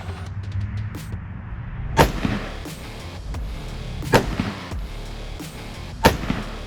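Three rifle shots from a Radical Firearms RF-15 AR-15, about two seconds apart, each followed by a short echo.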